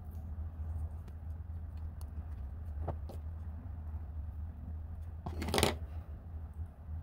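Light clicks and rustles of thin craft wire being bent and handled by hand, with a couple of sharper ticks about three seconds in. About five and a half seconds in comes a louder, brief metallic clatter as a pair of pliers is picked up off the wooden table. A steady low hum sits underneath.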